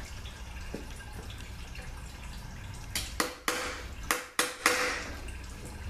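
Transmission fluid dripping onto the bench. About three seconds in comes a quick series of metallic clicks and clanks with a short ring, as the transmission's metal oil pan is handled.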